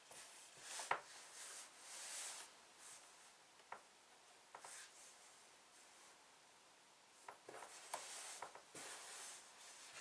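Faint rustling and rubbing of wool appliqué blocks being pressed and smoothed onto a design wall by hand, with a few soft taps.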